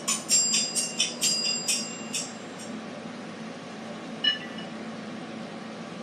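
Nokia phone ringtone playing quick, high electronic notes, about four a second, that stop about two seconds in. A steady hiss and hum follow, broken by one short beep about four seconds in.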